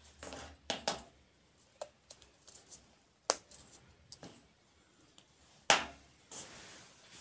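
Scattered small clicks and taps from hands handling a food tin, a syringe and a treat tube on a stainless-steel exam table, with one sharper knock nearly six seconds in followed by a soft rustling hiss.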